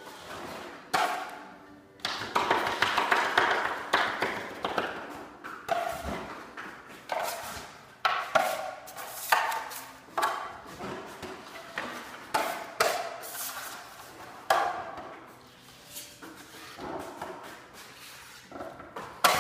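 Metal drywall taping knife scraping joint compound along the corner and off a metal mud pan, giving a run of ringing scrapes and clinks roughly once a second.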